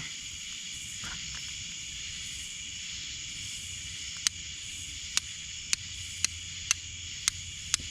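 Steel striker scraping against flint, seven sharp strikes roughly twice a second starting about halfway in, while trying to throw sparks to light a fire. Behind them is a steady high drone of night insects.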